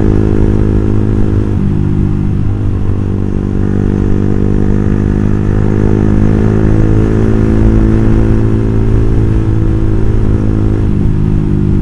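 Motorcycle engine and exhaust running steadily while riding at cruising speed, with small shifts in engine pitch about a second and a half in and again near the end.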